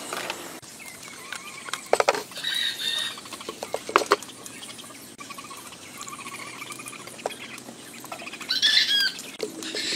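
Wooden spoon stirring in a metal saucepan and knocking against it, sharply about two seconds in and again about four seconds in. Short high bird chirps come just after the first knocks and again near the end.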